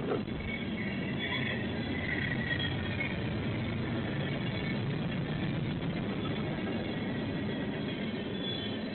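A train running by: a steady, even noise with faint high tones and no horn or bell.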